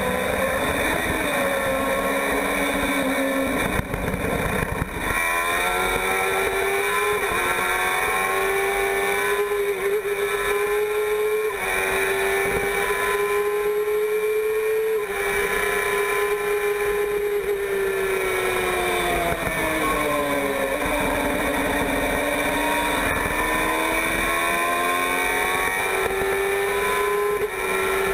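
F1000 formula car's 1000 cc motorcycle engine running at high revs on the track, heard onboard, shifting up through the gears. Its pitch climbs with each gear, falls away about two-thirds in as the car slows, and climbs again near the end.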